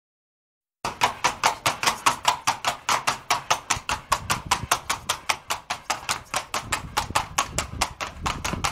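Sound effect of a horse's hooves galloping: a quick, even clatter of hoofbeats, about five a second, starting about a second in.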